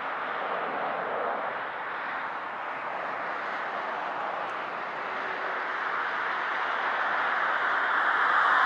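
Jet engines of a Boeing 777-258ER airliner on final approach with its landing gear down: a steady rushing drone that grows louder over the last few seconds as the aircraft nears.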